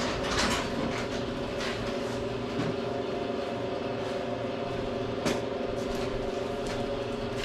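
A steady machine hum with a few short scrapes and clicks over it.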